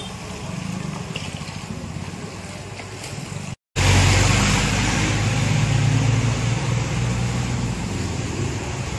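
Motorcycle and scooter engines running as the bikes ride through floodwater, with the swish of water stirred up around them. The sound drops out for an instant a little over three seconds in, then comes back louder.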